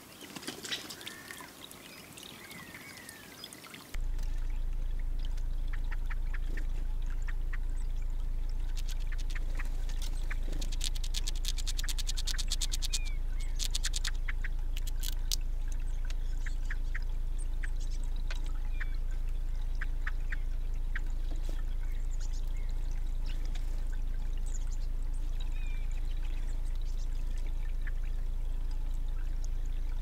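Red squirrel gnawing open a hazelnut: fast, dry clicks, densest between about 8 and 16 seconds in and scattered after. Underneath runs the steady bubbling of a small birdbath fountain with a low hum, which comes in about four seconds in.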